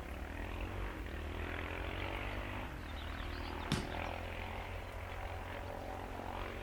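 Country club outdoor ambience: a steady low rumble with a faint drone of an engine or aircraft, and one sharp crack about three and a half seconds in.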